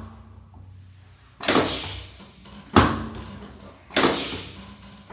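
Drop piece of a chiropractic drop table snapping down four times, sharp clacks about a second and a quarter apart, during a drop-technique adjustment for a restricted sacroiliac joint.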